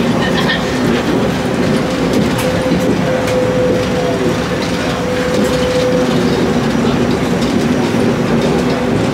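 Ride inside a MIA Mover car, the rubber-tyred automated people mover at Miami airport, running along its elevated guideway: a steady, loud rumble of the running gear and drive. A humming tone comes in about two seconds in and fades out about six seconds in.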